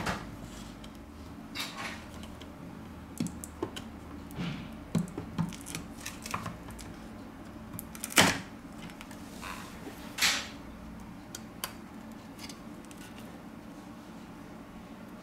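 Scattered small clicks and taps of a pry tool against the thin metal shield bracket inside an iPod touch as it is worked loose, with the sharpest click about eight seconds in and another about ten seconds in.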